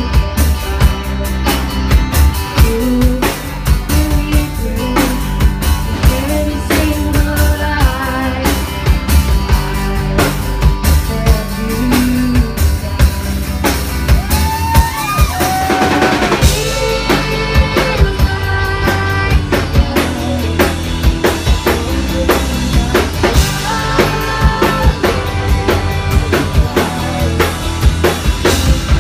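Live amplified rock band playing a song: drum kit with kick and snare, electric bass and guitars, with female vocals singing over them.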